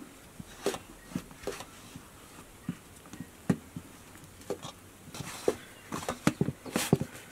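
Hands kneading soft, sticky dough in a stainless steel bowl: irregular wet squelches and slaps, coming thicker near the end.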